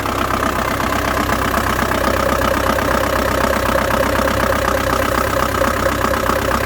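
Ford Transit van engine idling steadily with the clutch pedal held down, running without the clutch knock now that the clutch disc has been replaced. A steady higher tone joins the engine sound about two seconds in.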